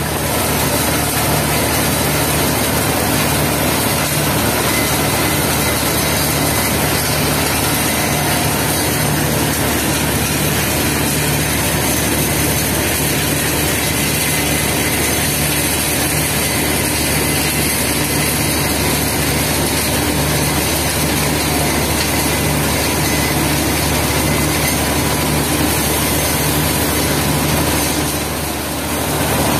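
Heavy machinery running steadily at an asphalt mixing plant, with a diesel dump-truck engine idling: a constant low engine hum under a strong, even hiss.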